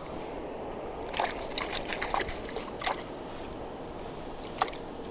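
Water sloshing and splashing as a caught fish goes into a mesh keepnet in the shallows: a cluster of short splashes and drips over about two seconds, then one more near the end.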